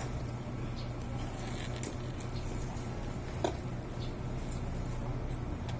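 Quiet eating sounds, a few faint clicks and small mouth smacks, over a steady low hum.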